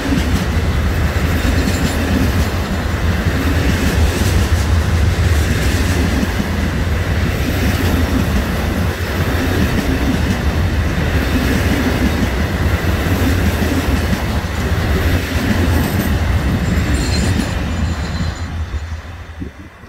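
Enclosed car-carrier wagons of a long freight train rolling past close by, steel wheels running over the rails with a steady loud rumble. The noise falls away near the end as the last wagon goes by.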